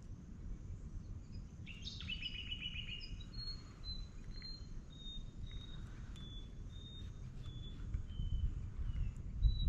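A bird calling: a quick trill about two seconds in, then a long series of short whistled notes, about two a second, slowly falling in pitch. A low rumble runs underneath and grows stronger near the end.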